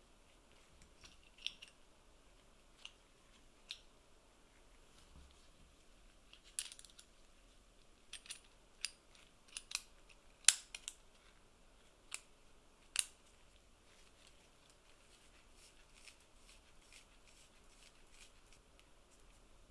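Small metal clicks and taps from the brass gears, steel plate and shaft of an antique hand-crank gear mechanism being fitted together by hand: about a dozen sharp ticks, the loudest about ten seconds in, then only faint ticking.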